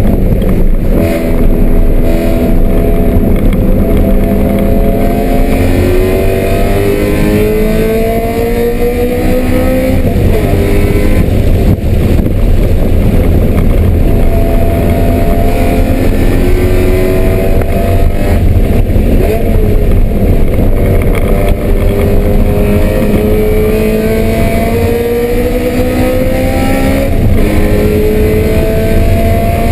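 BMW M3 race car engine under hard acceleration, climbing in pitch over several seconds and then dropping back, several times over, as it works through the revs on track.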